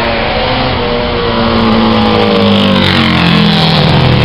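Racing motorcycle engine approaching along the straight, its engine note growing louder and stronger through the second half.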